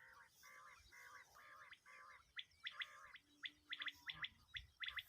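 Common quail calling, faintly: a run of soft, nasal low notes at about three a second, then from about halfway sharp, high pips in quick groups of two or three, the quail's 'wet-my-lips' phrase.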